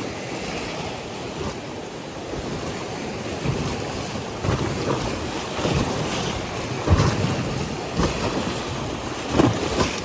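Rushing river water with wind buffeting the microphone, and a handful of short thumps in the second half.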